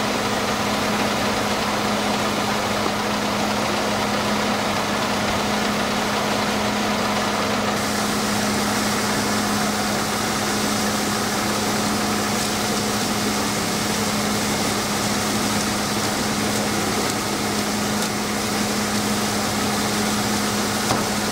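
Engine idling steadily with a constant low hum. A high hiss comes in more strongly about eight seconds in.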